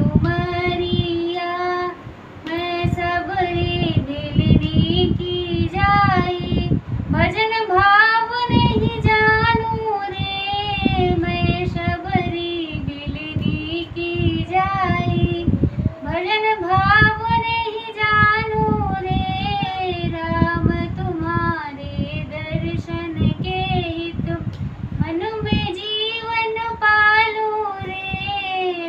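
A woman singing a Hindi devotional bhajan solo, her voice holding long notes that bend up and down between phrases.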